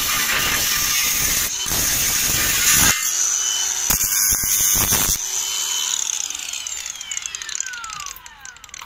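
Makita DGA504Z cordless angle grinder cutting through 3 mm steel plate with a cut-off disc, a harsh grinding hiss broken by a few abrupt edits. About five seconds in the cutting stops and the grinder winds down with a falling whine.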